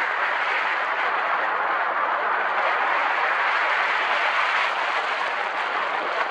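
Steady rushing wind noise from the airflow over a paraglider pilot's body-mounted camera microphone in gliding flight.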